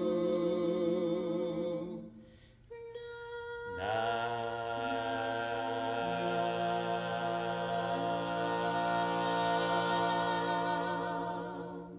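Mixed four-voice a cappella carol quartet, two men and two women, holding a chord with vibrato that breaks off about two seconds in. After a short gap and a lone held note, the full chord comes in again and is held as a long final chord until it fades away near the end.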